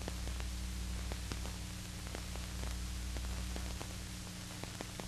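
Background noise of an old film soundtrack between narration lines: a steady hiss and low hum, with scattered faint clicks and pops.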